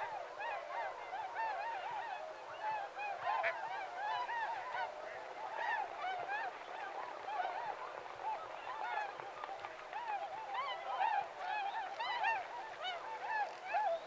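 A flock of waterfowl calling constantly: many short, overlapping calls from many birds at once, with no pause.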